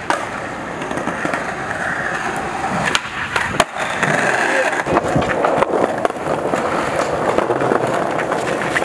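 Skateboard wheels rolling on concrete, with a grind along a concrete ledge near the start and a few sharp clacks of the board hitting the ground; the loudest clack comes about three and a half seconds in.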